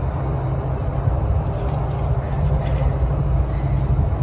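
A steady low rumble, heavy in the bass, with a few faint ticks.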